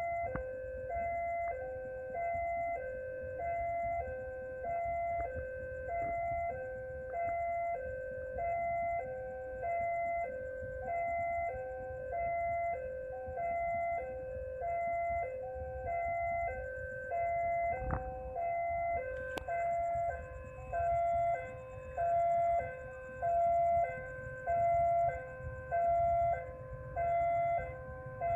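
Indonesian railway level-crossing alarm sounding its electronic two-tone ding-dong chime, repeating steadily about once every second and a bit, the warning that a train is approaching. The chime grows louder about two-thirds of the way in, over a low rumble.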